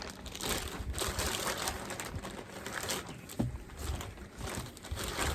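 A bag crinkling and rustling as skeins of yarn are pulled out and handled, with a few soft knocks.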